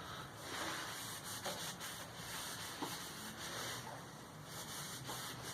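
Hand rubbing linseed oil into a wooden hammer handle: soft, repeated rubbing strokes that swell and fade.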